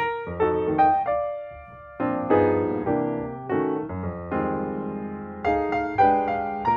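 Background piano music, with notes and chords struck every half second or so and each fading after it is struck.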